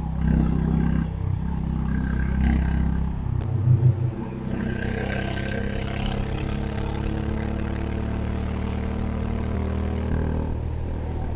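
Honda H'ness CB350's single-cylinder engine and exhaust running under way, with a brief louder spike just under four seconds in, then a steady, even note.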